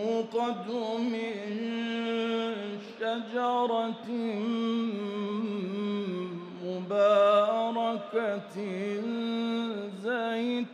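A man's voice reciting the Quran in the melodic, chanted style, holding long vowels and winding them through ornamented pitch runs, with a few short breaths between phrases.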